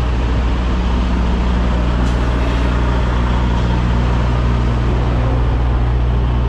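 Semi-truck diesel engine running at a steady low idle while the tractor-trailer is slowly backed, a constant low drone.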